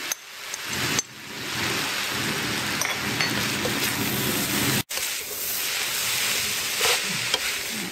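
Ground pork and chopped green onions sizzling in a hot wok while a spatula stirs them: a steady frying hiss. It breaks off for an instant about five seconds in.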